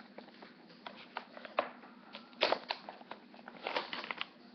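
Plastic packaging crinkling and rustling as it is handled, in irregular crackles that are loudest about two and a half seconds in and again near four seconds.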